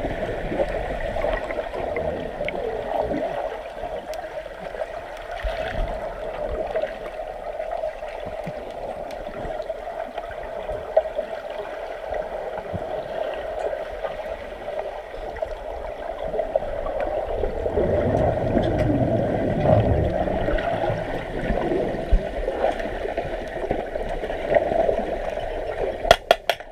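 Swimming-pool water gurgling and churning, over a steady hum. It swells louder about two-thirds of the way through, and a few sharp clicks come near the end.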